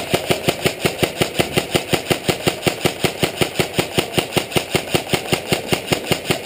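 Airsoft gun firing a long full-auto burst: a steady string of sharp shots, about seven a second.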